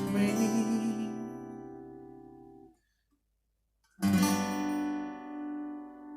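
Acoustic guitar chord ringing out and fading, then cutting to a brief silence; about four seconds in, a final chord is strummed and left to ring, closing the song.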